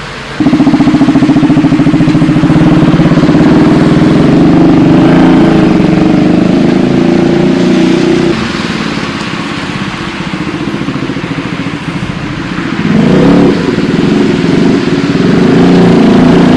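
Motorcycle engine running hard close to the microphone, cutting in suddenly. It eases off about eight seconds in and picks up again near the end.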